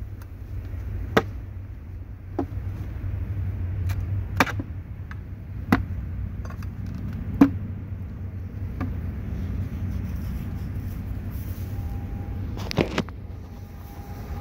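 Wooden beehive parts knocking together as a wooden feeder box is lifted off a nucleus hive and handled: about half a dozen sharp wooden knocks, one with a quick double knock near the end, over a steady low rumble.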